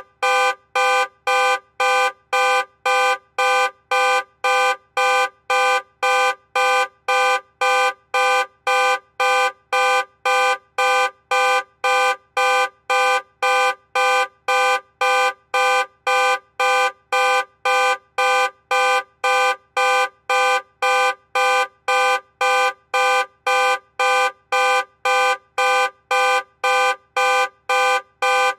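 Car alarm sounding, a loud pitched beep switching on and off at an even pace of about two beeps a second, with no change in pitch or rhythm.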